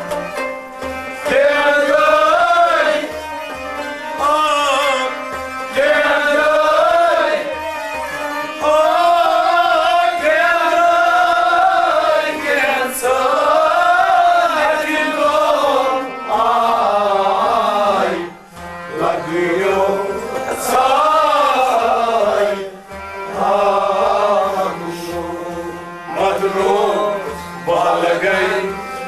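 A man singing a Kashmiri song in long, wavering held phrases with short breaths between them, over a steady drum rhythm.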